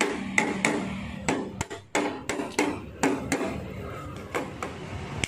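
Hammer tapping a steel patch panel down onto a Vespa scooter's floor pan: an irregular series of sharp metallic strikes with brief ringing.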